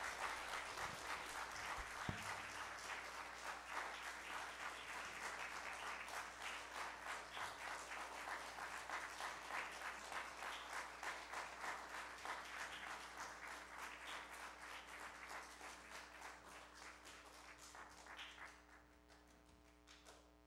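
Congregation applauding: many hands clapping, thinning out and fading away near the end.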